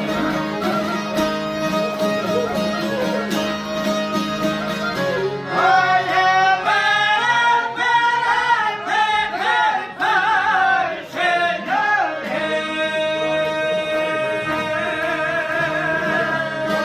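Folk song: stringed instruments hold a steady drone, and a singing voice with a wavering vibrato comes in about five seconds in and drops out about seven seconds later.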